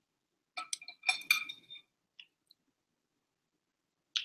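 Tableware clinking: a quick run of light clinks with a brief ringing tone about a second in, a couple of faint ticks, then one more clink near the end.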